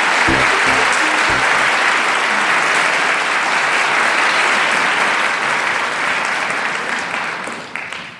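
Applause from many hands clapping, dense and steady, fading out near the end. Low notes of music sound under it during the first second or so.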